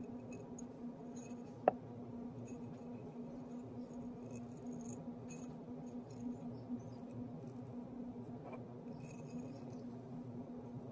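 Thin line tape being peeled off a coat of dry glaze on a small ceramic planter, giving scattered small crackles and ticks, with one sharp click about a second and a half in. A steady low hum runs underneath.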